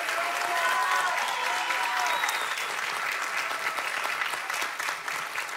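Theatre audience applauding at the end of a song, with a few voices calling out in the first two seconds; the clapping eases off slightly toward the end.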